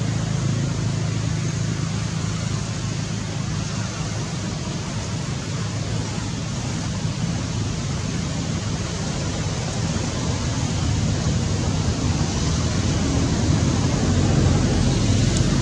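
Steady outdoor background noise: a continuous rushing hiss with a low rumble underneath, building slightly near the end, with no distinct calls or knocks.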